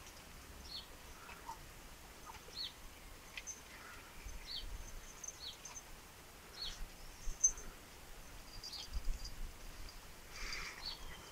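A small bird repeating a short high chirp that drops in pitch, every one to two seconds, with fainter calls from other birds. A brief rustle comes about ten seconds in.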